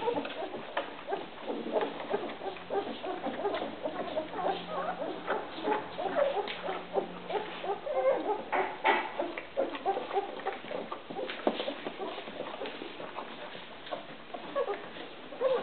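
Litter of two-week-old Rhodesian Ridgeback puppies squeaking and whimpering while they nurse, many short high squeaks overlapping one another.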